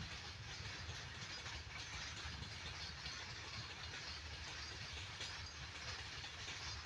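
Coal-loaded freight wagons rolling past on the track: a steady rumble with hiss from the wheels on the rails.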